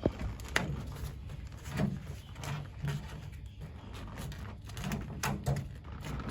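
Handling noise: scattered knocks, clicks and rubbing as the insulated beer lines are pushed through a hole in the bench, with sharper knocks near the start and again about five seconds in.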